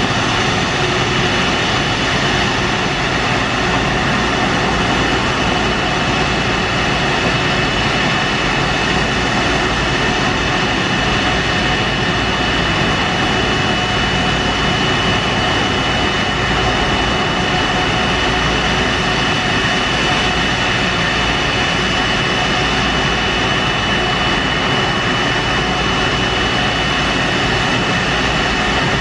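Jet engine noise from a stationary airliner: a steady, unbroken roar with a constant high whine over it.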